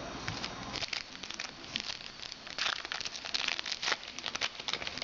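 Crinkling and rustling of a trading card pack's wrapper and the cards being handled: a dense, irregular run of small crackles and rustles.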